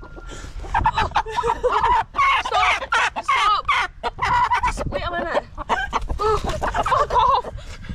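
Chickens squawking and clucking in a long, nearly unbroken run of wavering calls, starting about a second in, as a hen is caught and picked up.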